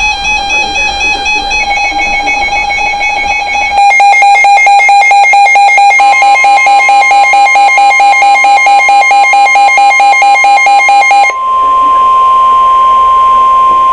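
Electronic alert beeps pulsing rapidly, louder from about four seconds in. About eleven seconds in they give way to one steady high tone, the NOAA Weather Radio 1050 Hz warning alarm tone that comes before a warning message.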